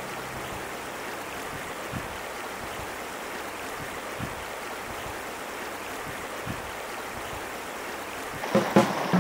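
Shallow mountain river, the Azusa, flowing over cobbles: a steady rush of water with small gurgles and splashes. A few louder, sharp sounds come in near the end.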